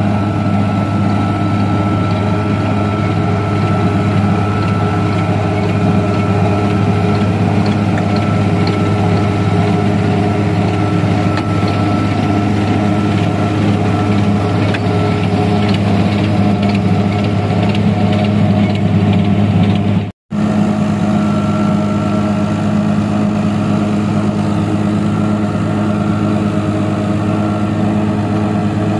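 A tractor's diesel engine running steadily as it tows a mobile mud-brick making machine, with light clicking and clatter from the machine's moulding wheel through the middle. The sound cuts out for a split second about two-thirds through.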